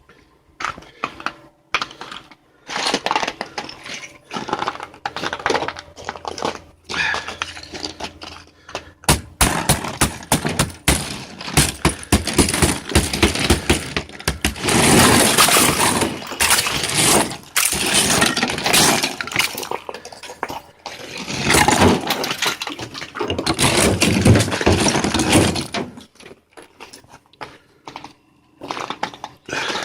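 Thick ice on a car being chipped and scraped off: a run of sharp cracks and crunches, sparse at first, then dense and loud from about a third of the way in, thinning out again near the end.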